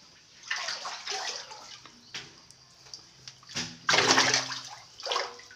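Water splashing and churning in several bursts as a hand thrashes in a small tank, grabbing at a fish; the loudest burst comes about four seconds in.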